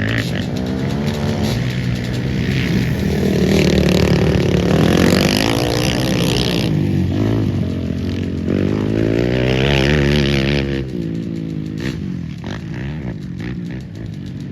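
Several racing quad (ATV) engines revving up and down as they go by. The sound swells twice, loudest in the middle, and fades after about eleven seconds.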